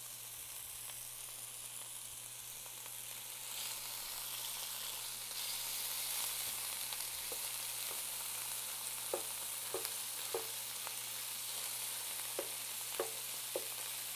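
Ground beef sizzling as it sears in a skillet, the sizzle growing louder a few seconds in. From about nine seconds in, a spatula chops the meat into pieces with sharp taps against the pan.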